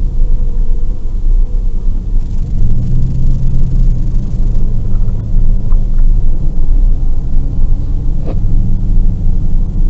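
Vehicle engine running with a steady low rumble while it waits in line; a deeper drone swells in about two and a half seconds in and again near eight seconds.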